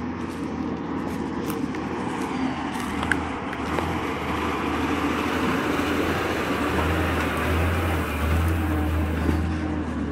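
KSRTC bus's diesel engine running under load over rough off-road ground, with a few brief knocks and rattles; the engine drone grows louder through the second half.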